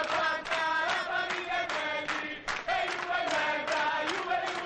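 A crowd of football ultras chanting in unison: a rhythmic sung chant with short breaks between phrases.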